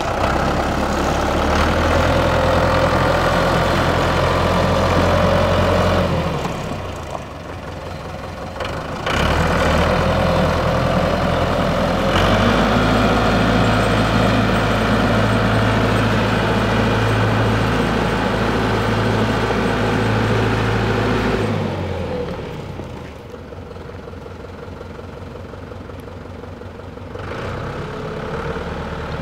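ISEKI T625H 62 HP four-wheel-drive tractor's diesel engine running as the tractor is driven. Its note is steady and loud, dips for a few seconds after about six seconds, and drops to a quieter level after about twenty-two seconds as the tractor moves away.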